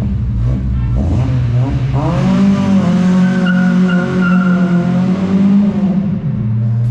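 Volkswagen Golf Mk2 GTI's four-cylinder engine revving against an aftermarket ignition-cut rev limiter. It stutters roughly for the first two seconds, then the revs rise about two seconds in and are held steady at the limiter's cut, dropping back near the end.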